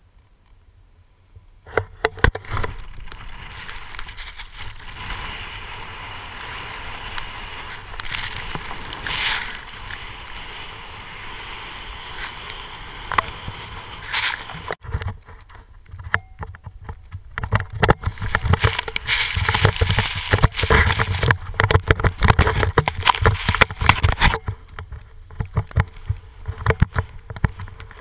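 Snowboard sliding and carving through powder snow, with wind buffeting the microphone of the pole-mounted camera. The scraping hiss starts a second or two in and grows louder and rougher about halfway through, full of sharp scratchy crackles.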